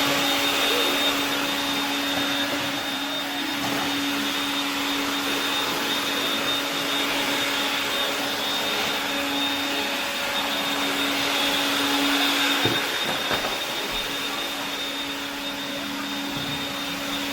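Vacuum cleaner running steadily: a constant motor hum with a steady high whine over the rush of air.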